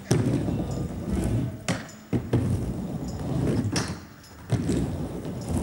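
Skateboard riding a mini ramp: the wheels rumble steadily as the board rolls to and fro, with several sharp clacks as the board meets the coping at the top of each wall.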